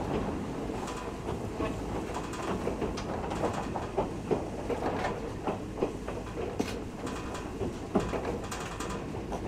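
Nagano Electric Railway 3500 series electric train running, heard from inside the car: a steady rumble of wheels on rail with irregular clicks and knocks from the track.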